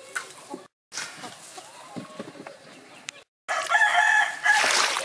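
A rooster crowing loudly in the last second and a half, a held call with a steady pitch, after quieter rustling of leafy stems being handled. The sound drops out briefly twice.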